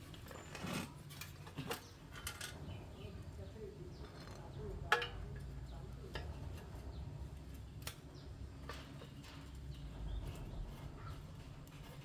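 Scattered sharp clicks and light metallic taps, the loudest about halfway through, over a steady low hum, with faint bird chirps.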